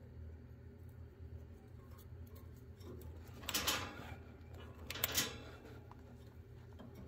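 Chinchilla gnawing on a hanging wooden chew toy: faint scattered nibbling clicks, with two louder crunching bites midway, about a second and a half apart, over a low steady hum.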